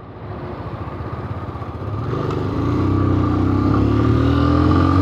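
Honda CGL 125's single-cylinder four-stroke engine pulling away from a stop. It grows steadily louder and its pitch rises slowly as the bike accelerates.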